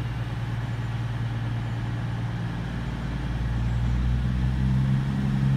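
Two coupled Class 221 Super Voyager diesel units pulling away, their underfloor diesel engines running with a steady low drone. The sound grows louder, with a higher engine note joining about four seconds in, as they power up.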